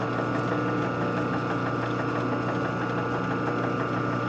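Steady electric machine hum, with a faint regular ticking over it.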